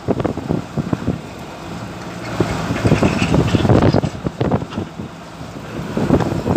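Wind buffeting the microphone in irregular, gusty surges.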